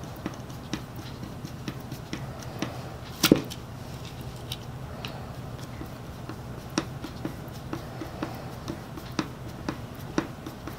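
Irregular light clicks and taps of small tools and parts being handled at a workbench, with one louder knock about three seconds in, over a steady low hum.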